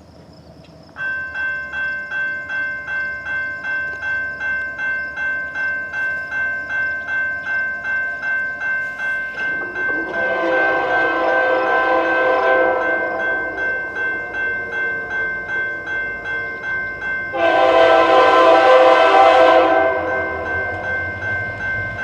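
A level-crossing bell starts about a second in and rings steadily at about two strokes a second, while a CN freight locomotive's air horn sounds two long blasts, one about ten seconds in and a louder one about seventeen seconds in.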